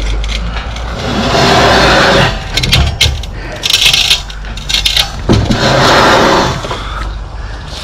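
Long galvanised steel angle lintel scraping over the brickwork as it is pushed into its seating, in about three rough, grating pushes of roughly a second each with metallic clinks between them.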